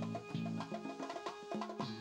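Live Latin band music, with congas struck by hand driving a repeating rhythm over a low, repeating note pattern.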